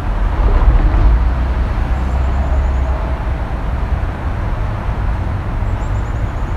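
Loud, low outdoor rumble with no clear pitch, strongest over the first two seconds and then easing.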